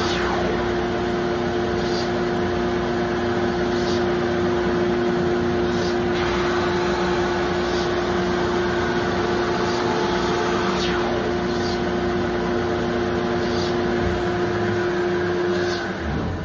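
Shop Fox wide belt sander running with a steady, loud hum and a held mid-pitched tone while a hardwood cutting board feeds through on its conveyor. The tone cuts off and the sound drops near the end.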